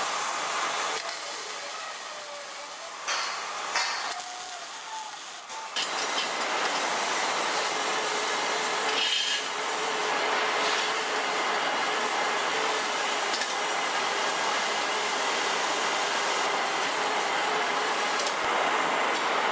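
Steady workshop background noise: a broad hiss, like a fan or extraction running. It is quieter for a few seconds about a second in, with a couple of light knocks, then runs steadily.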